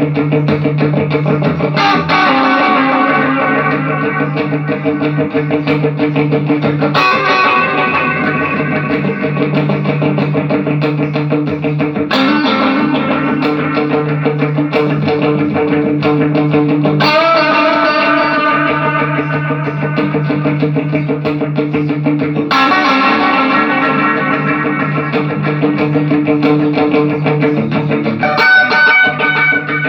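Electric guitar played through a Line 6 POD HD500 multi-effects board and a Pignose G40V tube amp, testing the board after repair. New chords ring out about every five seconds over a steady low note.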